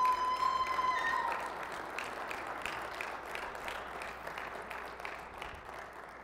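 Banquet audience applauding, the hand claps slowly thinning out. In the first second or so a single held, high-pitched cheer rises above the clapping.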